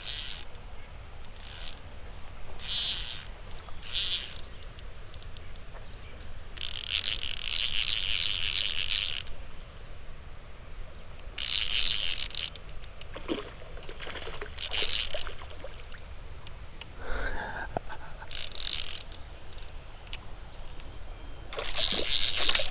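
Insects buzzing in repeated high-pitched bursts, each from half a second to a few seconds long, coming at irregular intervals.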